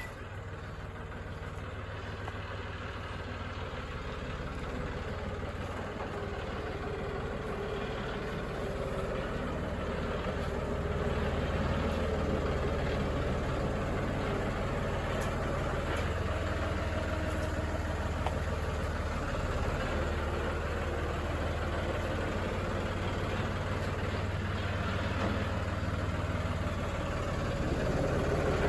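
Motor vehicle engine running steadily, a low hum that grows gradually louder.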